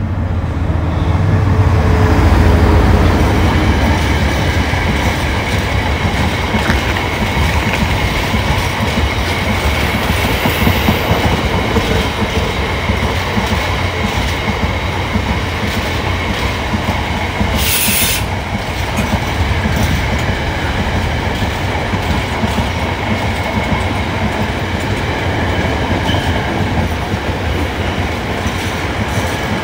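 Long freight train passing close by: a loud low rumble swells in the first few seconds, then the wagons' wheels run on in a steady clickety-clack over the rail joints, with a faint squeal from the wheels. A short hiss comes about eighteen seconds in.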